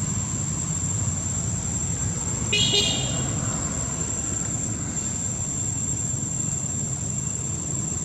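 Steady low background rumble with a constant thin high whine. About two and a half seconds in comes a short, loud, horn-like toot.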